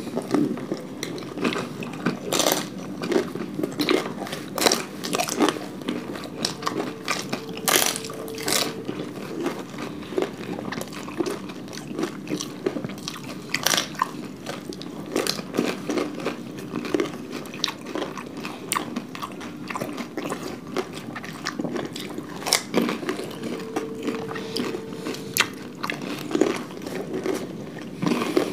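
Two people eating panipuri and papdi chaat: the crisp fried puri shells and papdi wafers crunch as they are bitten, with chewing and wet mouth sounds in between. Crunches come irregularly, many per second at times.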